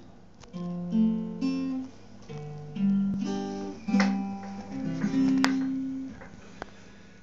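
Acoustic guitar played solo: a slow phrase of picked notes and a few strummed chords that ring on between strokes, dying away near the end.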